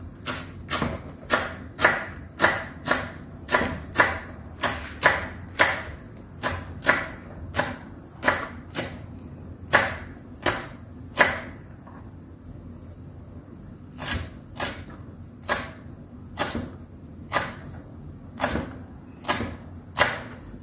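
Kitchen knife chopping fresh parsley on a plastic cutting board, sharp knocks about two a second, with a pause of about two seconds a little past the middle before the chopping resumes.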